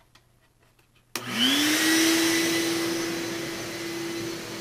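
Shop vac switched on about a second in. Its motor spins up quickly to a steady whine and runs on over a loud hiss of rushing air.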